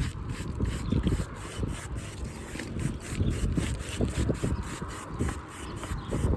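Irregular scuffing and rubbing noises over a low, uneven rumble.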